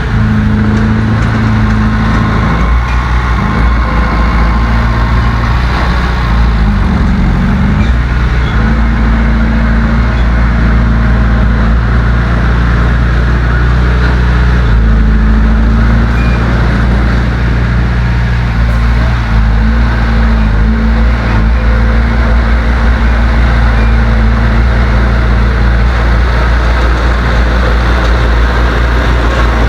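Heavy diesel engine of earthmoving machinery running steadily under load, its pitch dipping and rising briefly about seven seconds in.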